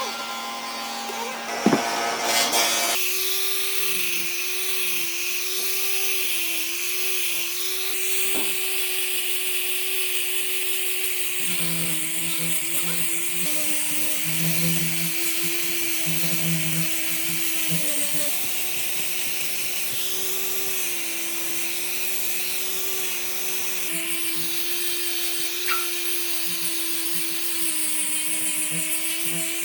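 Electric power tool working wood: a steady motor whine over a hiss, its pitch dipping slightly now and then as it bears into the wood. A sharp knock comes about two seconds in.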